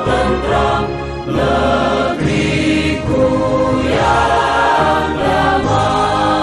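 Background music with a choir singing long held chords that change about once a second.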